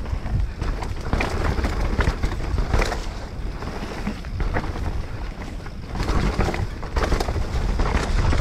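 Wind buffeting the microphone during a fast mountain-bike descent, with the bike rattling and knocking over a rough dirt trail in many short clatters.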